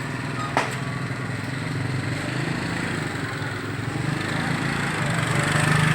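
An engine running steadily with a low hum that grows louder near the end. A single sharp click comes about half a second in.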